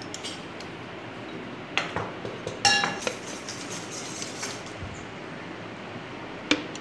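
Metal hand-press lemon squeezer clinking against a glass jar as lemon juice is pressed over the peaches: a couple of light knocks about two seconds in, a loud ringing metal clink just under three seconds in, and another sharp knock near the end, over a steady low hiss.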